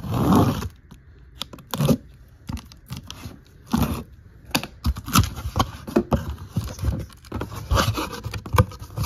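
Box cutter slitting the packing tape on a corrugated cardboard carton, followed by cardboard flaps and clear plastic blister packs being handled: irregular scraping, tearing and rustling with sharp knocks.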